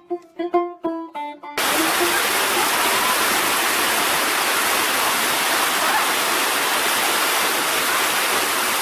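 Plucked-string music stops abruptly about one and a half seconds in, cut straight to the steady rushing of a waterfall, water pouring over rock.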